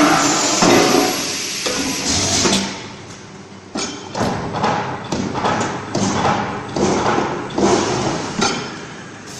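Refractory ball pressing machine running. It starts as a dense clatter of knocks and hisses, then settles into repeated pressing strokes, a little under two a second.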